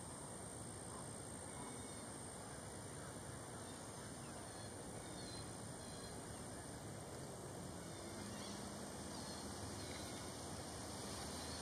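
Faint outdoor background hiss with a few faint, distant bird calls.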